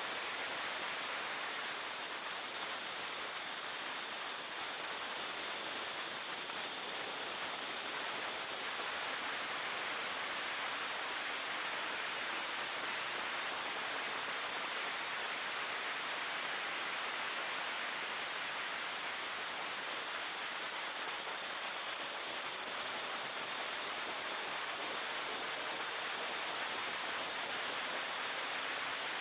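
Steady rushing hiss of wind and road noise in a BMW E36 M3 race car at speed. The straight-six engine is faint beneath it, its pitch drifting slowly up and down.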